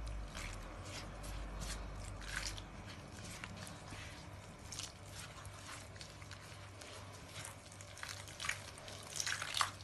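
Warm water trickling from a plastic jug onto flour while a hand rubs and squishes the wet flour, yeast and sugar: faint scattered soft wet crackles, a few louder ones near the end.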